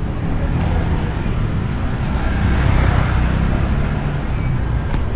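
Street traffic noise: a steady low rumble of vehicle engines, swelling a little around the middle.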